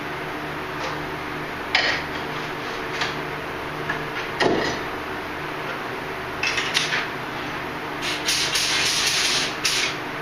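Paint spray gun hissing in short bursts, then one longer spray of about a second and a half near the end, over a steady low machine hum.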